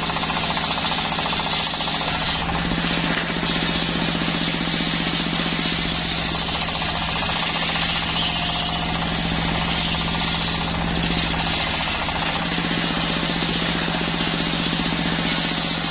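Wood-sawing circular saw machine running steadily while cutting waru (sea hibiscus) timber. It makes a constant hum with a fast, even pulsing and a hiss from the blade in the wood.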